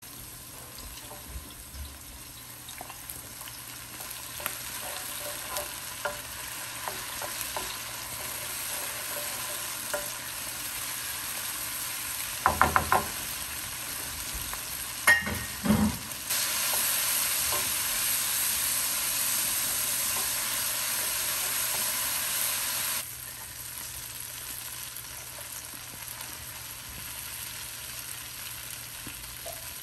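Chopped onion and tomato frying in olive oil in a skillet, sizzling steadily, with a wooden spoon stirring and knocking against the pan a few times past the middle. For several seconds in the second half the sizzle is louder and brighter, then it drops back.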